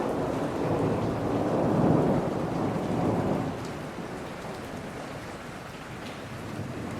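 Steady rain falling in a forest, with a low roll of thunder that swells to its loudest about two seconds in and fades away by about four seconds.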